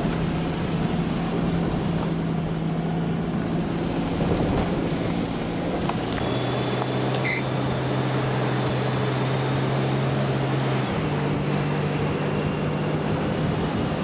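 Car driving along beach sand, heard from inside the cabin: a steady engine hum over tyre and wind noise. The engine note drops about six seconds in and rises again about eleven seconds in.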